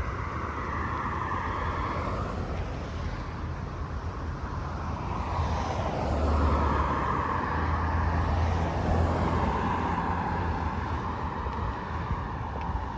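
Motor vehicles passing on a city street, a steady rumble of engines and tyres that swells about halfway through and then eases off.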